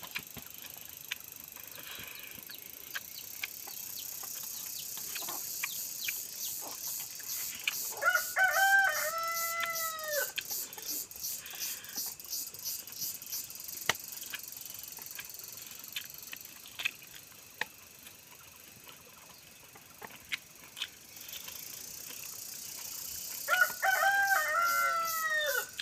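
A rooster crowing twice, each crow about two seconds long, first about eight seconds in and again near the end. Under it runs a steady high pulsing buzz, with scattered small clicks and smacks of hand-eating from a steel plate.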